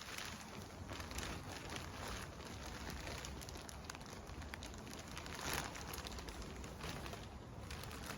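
Rain pattering steadily, a dense crackling hiss with a few brief louder rustles.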